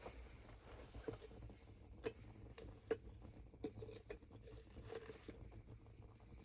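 Faint irregular light taps and rustles, with sharper clicks about once a second.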